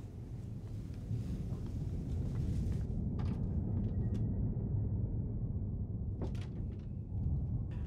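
Low, steady rumble that swells a little after the first second, with a couple of faint clicks around three and six seconds in.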